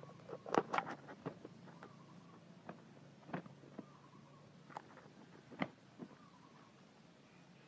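Sparring roosters scuffling: scattered short wing flaps and scrapes, the loudest cluster about half a second in, with a few more spread through the rest.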